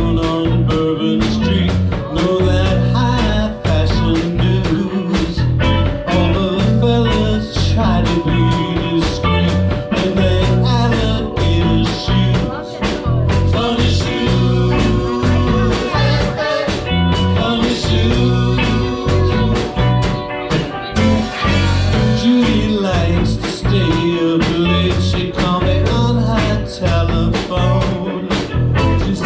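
Live blues band playing: guitar over bass and drums with a steady beat.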